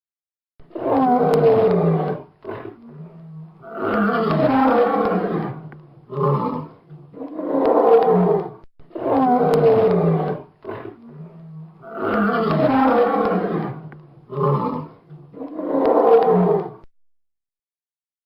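Lion roaring: six long, loud roars, most followed by a shorter call, with low grunts in the gaps between them. The roaring starts about half a second in and stops about a second before the end.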